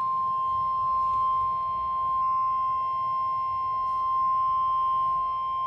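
NOAA Weather Radio's 1050 Hz warning alarm tone: a single steady, unbroken high-pitched beep at constant loudness. It is the attention signal that comes before a warning broadcast, here a special marine warning.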